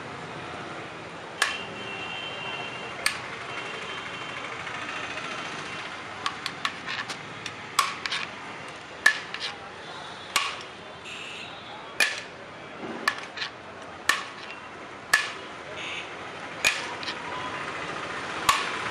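Steel serving spoon knocking against the rim of a large aluminium cooking pot, a sharp metallic clink every second or so with a short ring after some, including a quick run of clinks about six seconds in.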